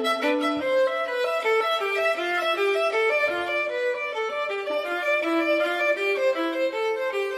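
Background music: a violin playing a melody of held notes that step up and down in pitch, with no drums.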